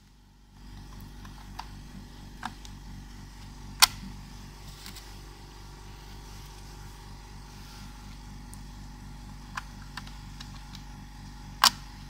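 Small sharp clicks of RAM modules being pushed into the motherboard's memory slot and snapping into its latches, the two loudest a few seconds in and near the end. Under them runs a steady, low, pulsing mechanical drone.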